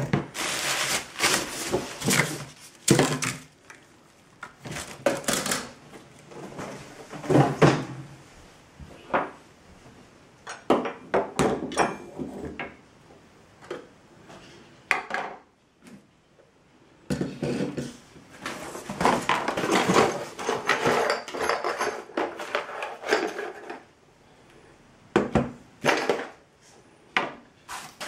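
Hard plastic weather-station parts and a cardboard box being handled and set down on a wooden table: irregular clatters, knocks and rustles in bursts, with short pauses around four, ten, sixteen and twenty-four seconds in.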